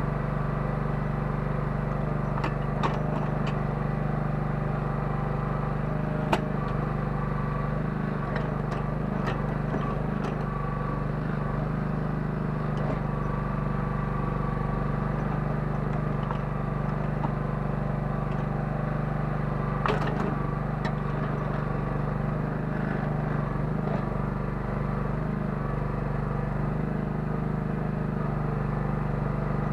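Kellfri towable mini excavator's 9 hp engine running steadily under hydraulic load, with scattered sharp knocks and clanks from the digging in icy gravel, the loudest about six and twenty seconds in.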